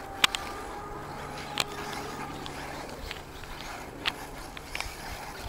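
Faint outdoor background at a dirt RC track: a steady light hiss with a faint low hum, broken by four or five sharp clicks.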